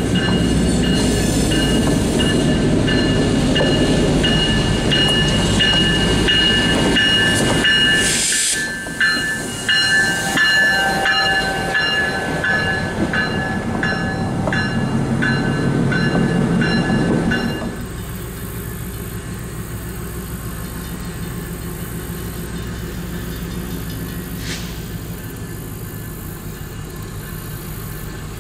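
Crandic's EMD MP15AC diesel switcher passing slowly: engine rumbling, wheels giving a steady high squeal and clicking over rail joints. About two-thirds of the way through the sound cuts abruptly to a much quieter, steady background.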